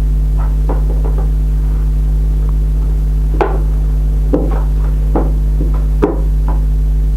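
Homemade glue-and-borax slime being kneaded and stretched by hand, giving about eight short irregular squelching pops, over a loud steady hum.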